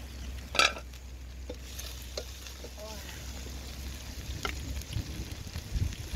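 A metal pot lid clanks once, sharply, about half a second in; then a wooden spatula scrapes and knocks against a cooking pot as raw gizzard pieces are pushed in on top of simmering pineapple, with faint sizzling and small clicks.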